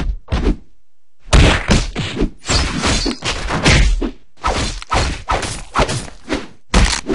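Cartoon fight sound effects: a few quick punch hits, a pause of about a second, then a fast, dense barrage of whacks and thuds, several a second.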